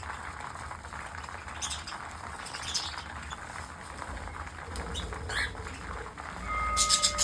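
Small pet parrots chirping and squawking in short, sharp calls over a steady background of chatter, with a louder burst of calls near the end. A steady high tone also comes in near the end.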